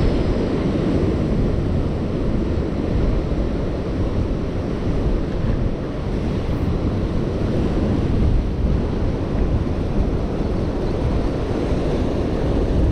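Wind buffeting the microphone over the steady wash of rough surf breaking on the beach.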